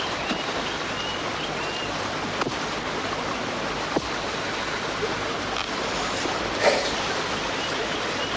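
Steady hissing outdoor ambience with faint high chirps in the first part, and a brief sob from a man about two-thirds of the way through.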